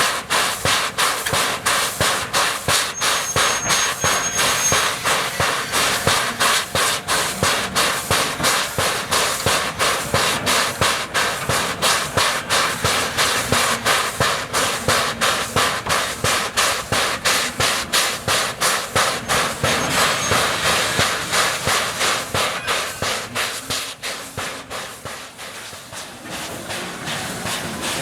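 JS-class 2-8-2 steam locomotive working, its exhaust beating steadily at about three chuffs a second; the beats fade about twenty-four seconds in, then grow louder again near the end.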